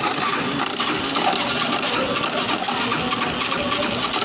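Yamaha YBR 125 single-cylinder four-stroke engine running with a steady, loud metallic clatter. The mechanic places the noise at the cam chain and stator side of the engine.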